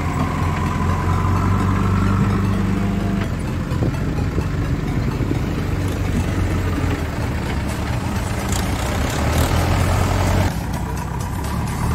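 Mahindra Yuvo tractor's diesel engine running steadily at low speed while pulling a loaded trailer; the sound changes abruptly near the end.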